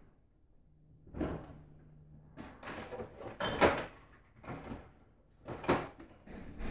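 Refrigerator door opened and items on its door shelves handled: a run of separate knocks and rattles, the loudest about three and a half seconds in.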